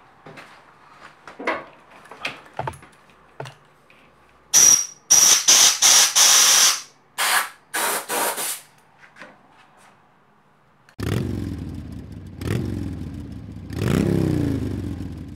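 Compressed-air blow gun fired in a series of about six short, loud hissing blasts, the first with a high whistle, clearing metal swarf from a drilled-out bolt hole in the engine casing. A few light clicks of handling come before it, and after a pause an engine revs up in three rising sweeps.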